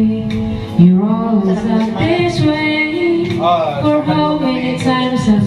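A woman singing karaoke into a microphone over backing music, holding long, wavering notes.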